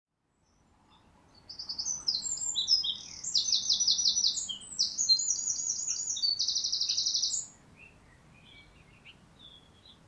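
Eurasian wren singing one loud song of high, rapid notes and fast trills, lasting about six seconds and stopping abruptly. A few faint high chirps follow.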